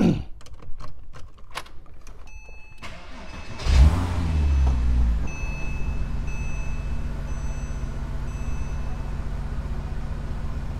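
Porsche Cayman 987's flat-six engine started from inside the cabin: a few clicks and a brief beep, then about four seconds in the engine cranks and catches with a loud flare of revs that falls back into a steady idle.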